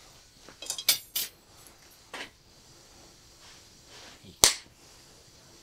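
Sharp metallic clicks and snaps of pliers working on steel: a quick cluster about a second in, a single click a little after two seconds, and a louder snap about four and a half seconds in.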